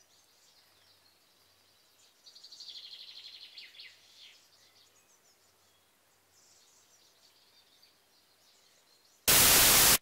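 Near silence with a faint, rapid, high chirping trill about two seconds in. Near the end a loud burst of TV-static hiss starts abruptly.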